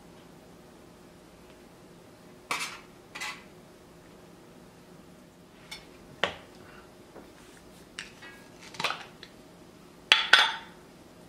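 Metal kitchen tongs clinking and scraping against a metal tray and dishes while food is served onto a plate: a handful of short, separate clinks and clatters, the loudest two close together near the end.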